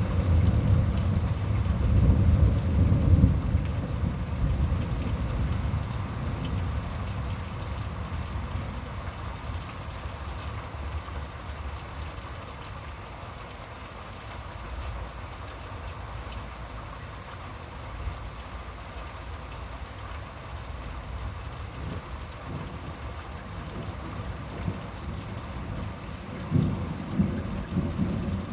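Thunder rumbling low over steady rain. The rumble is loudest in the first few seconds and dies away, and a shorter rumble comes near the end.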